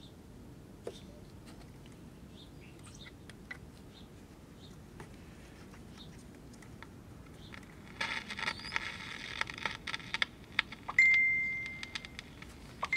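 Emerson All-American Five tube radio running through its own speaker at a weak level, the low-volume fault it came in with: crackling static with clicks about eight seconds in, then a short high steady whistle that fades, heard twice near the end.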